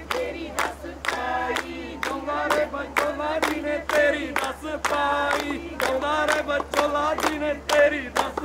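A crowd of voices chanting together in unison over a steady beat, about three beats a second.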